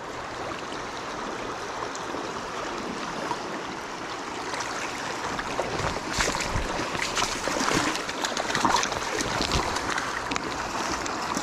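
Shallow creek water running steadily over rocks. From about six seconds in, wader-clad legs slosh and splash through the current as someone wades.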